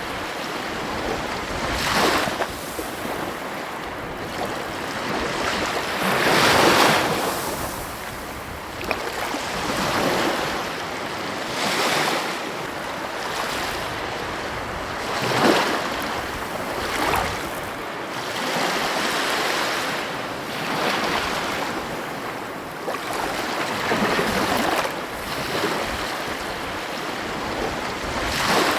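Ocean surf washing on a beach: a steady rush of water that swells every few seconds as each wave breaks, the biggest about six to seven seconds in.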